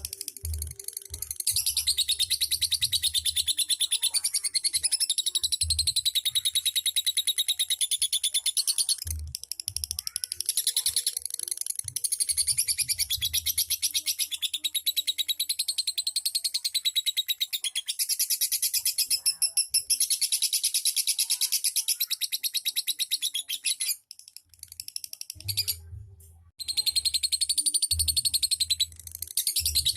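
Lovebird singing in long, unbroken rapid trills of the 'ngekek' style. Each trill runs for several seconds, with brief pauses about nine seconds in and again around twenty-four to twenty-six seconds. Faint low thumps come and go underneath.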